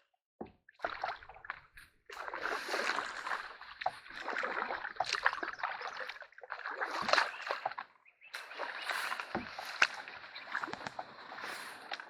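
Canoe being paddled through a shallow, overgrown creek: paddle strokes splashing and water sloshing in swells, with scattered sharp knocks.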